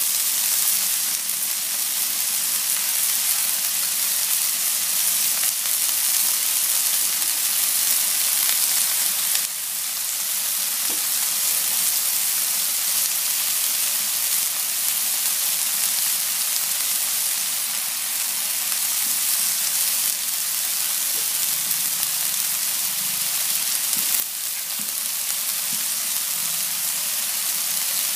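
Raw chicken strips sizzling on a hot ridged grill pan, just starting to cook: a steady frying hiss that steps slightly quieter about a third of the way in and again near the end.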